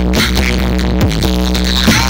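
Loud electronic dance music played through a large sound system, with a heavy sustained bass and a deep kick hit about once a second.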